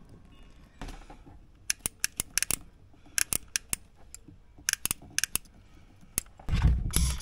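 A hand tool working on the horn wire, snipping and clicking in quick clusters of sharp clicks. Near the end comes a louder rough rustling of the wiring being handled.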